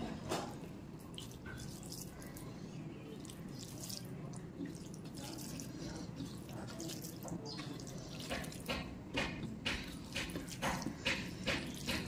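Wet squishing and clicking of fingers mixing rice with chicken-skin curry gravy on a steel plate, growing into a quick run of short squelches in the last few seconds.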